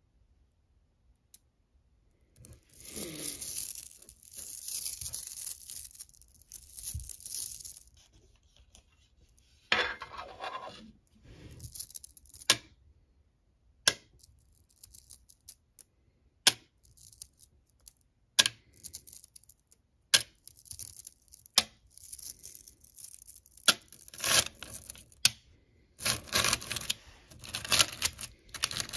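Small smooth ferrite magnet pebbles clicking and rattling against each other. They grind together in a squeezed handful early on, click one at a time as they are dropped and snap together in a metal tin, and clatter densely as fingers press and stir the heap in the tin near the end.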